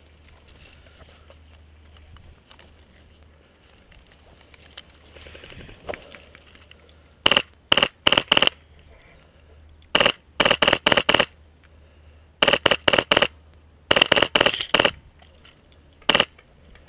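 Airsoft rifle firing rapid bursts of three to five shots, one burst about every two seconds, starting about seven seconds in, with a single shot near the end.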